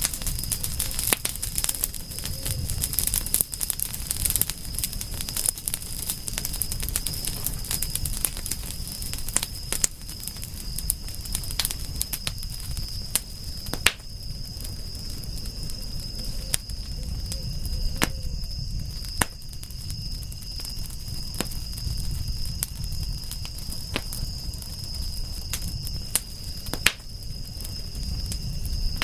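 Wood fire crackling, with irregular sharp pops and snaps, over a low rumble. A steady high insect trill, like crickets, runs underneath.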